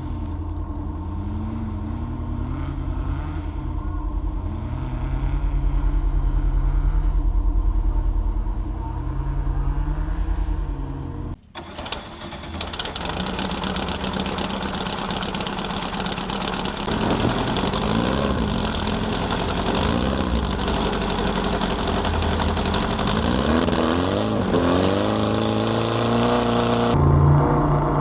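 Air-cooled Volkswagen flat-four engine running under way, its pitch rising and falling over and over as it revs through the gears. About eleven seconds in the sound cuts, and the engine then continues under a loud steady hiss.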